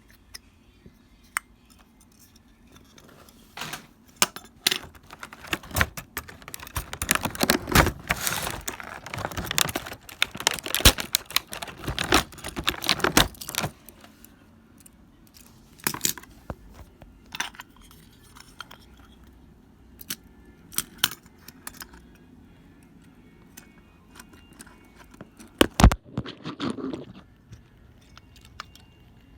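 Small plastic toy parts clicking and rattling as they are handled, in a dense spell of clattering that gives way to scattered single clicks.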